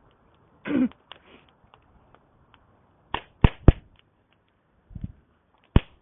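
Campfire wood crackling: sharp pops, three in quick succession about three seconds in and another near the end, after a brief, louder falling sound about a second in.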